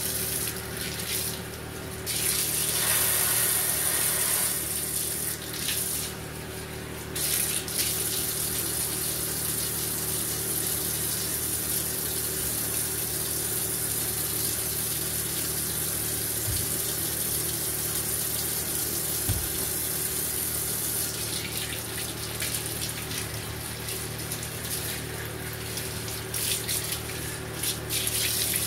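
Water running steadily from a bathtub's handheld shower and splashing into the tub as a small dog is washed and rinsed. The flow briefly drops twice in the first several seconds.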